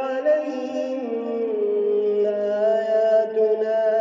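A male Quran reciter chanting in melodic tajweed, drawing out long held notes that shift slowly in pitch.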